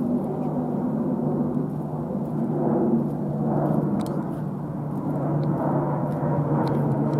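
Jet aircraft on final approach, its engines a steady low drone with a deep hum that swells slightly partway through.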